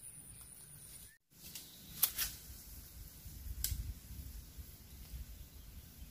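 Outdoor wind rumbling on the microphone, with a few short sharp clicks. The sound drops out completely for a moment about a second in.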